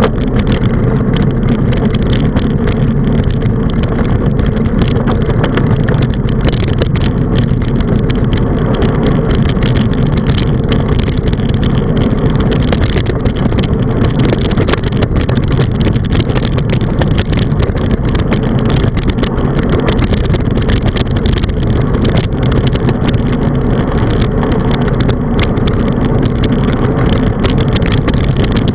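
Wind buffeting the microphone of a handlebar-mounted camera on a moving bicycle, a steady low rumble mixed with tyre noise on asphalt and constant small rattles from the mount.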